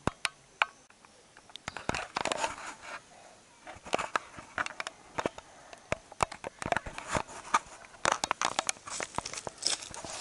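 Handling noise from a small camera held by a child: irregular clicks, knocks and crackles as fingers and grip rub and tap on the camera while it is carried about.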